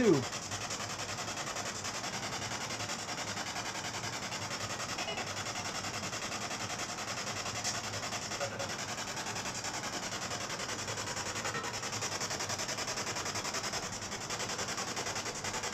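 Spirit box sweeping through radio stations: steady, rapidly chopping scratchy static with a few brief faint snatches of tone, as the ghost hunters wait for an answer.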